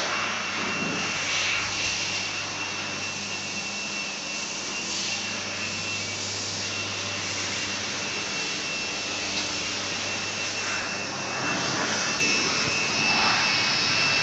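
A 1500 W handheld fiber laser welding machine running: a steady hiss with a constant high whine over it, a little louder near the end.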